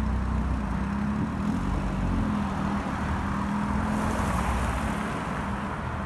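Mazda Carol kei car with a 660 cc engine pulling away, its engine running with a steady drone. The low rumble weakens about two seconds in.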